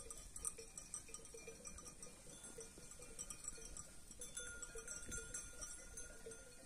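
Bells on grazing sheep clinking faintly and irregularly as the flock moves about.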